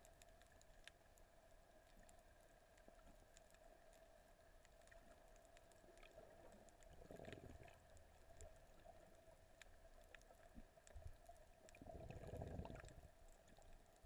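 Near silence: a faint steady hum, with two soft, low, muffled swells about seven and twelve seconds in.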